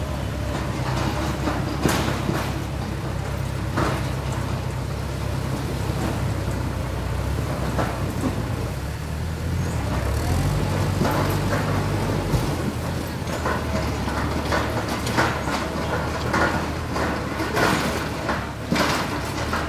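Small compact tractor's engine running steadily as it drives through a shallow stream towing a metal trailer, with occasional knocks and rattles.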